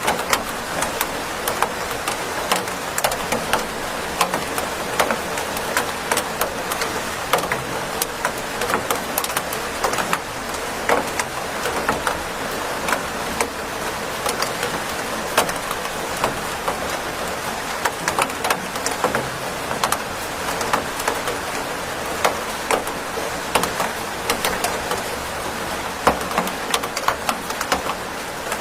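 Steady rain: an even hiss of rainfall with many close drops ticking sharply and irregularly.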